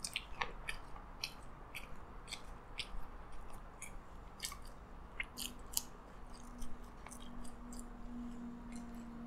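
Close-up chewing of French fries: a run of short wet mouth clicks and smacks, two or three a second, with a faint steady low hum from about halfway through.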